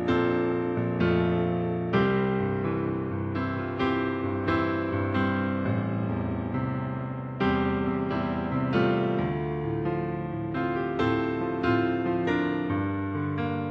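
Solo piano playing a slow piece, with notes and chords struck about once a second, each left to ring and fade.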